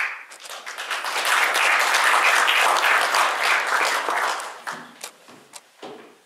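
Audience applauding: the clapping builds over the first second and a half, holds, then dies away after about four seconds into a few scattered claps.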